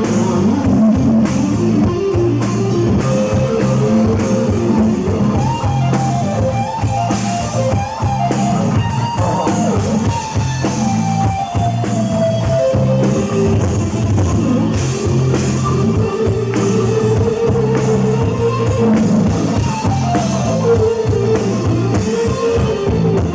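Live rock band playing loud and steady, with electric guitar and drum kit.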